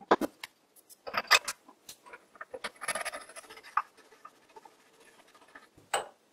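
Light metallic clicks, taps and scraping of lathe spindle parts handled and fitted by hand as a knurled nut goes onto the spindle's threaded end, with a denser scratchy stretch about three seconds in.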